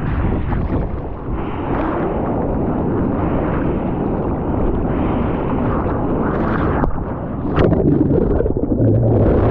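Wind buffeting the microphone over rushing seawater, a loud, steady rush with a single sharp knock about seven and a half seconds in.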